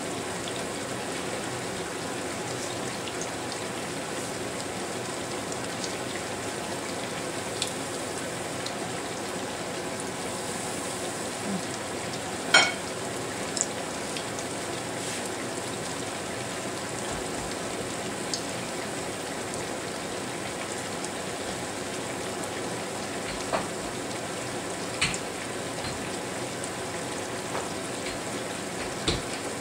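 Fleischkrapfen sizzling steadily in hot frying fat, with a few sharp knocks, the loudest about twelve seconds in.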